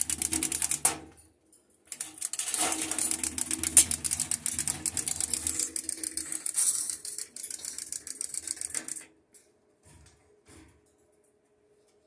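Umbrella cockatoo flapping its wings hard while gripping a perch: rapid beating of feathers in two spells, a short one at the start and a long one from about two seconds in, stopping about three seconds before the end.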